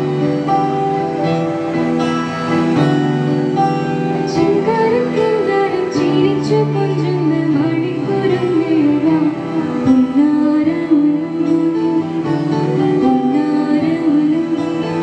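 Live student band heard through a PA: acoustic guitar and keyboards play sustained chords, and a girl's voice enters about four seconds in singing the melody.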